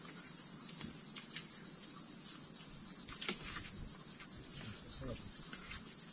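Loud, steady high-pitched insect chorus: a shrill, continuous buzz with a fast, even pulse. A few faint clicks sound beneath it.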